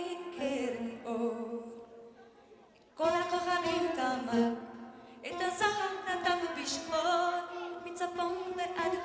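Live music: a woman sings held notes with vibrato, backed by the band. The music dies down almost to silence just before three seconds in, then she comes back in loudly.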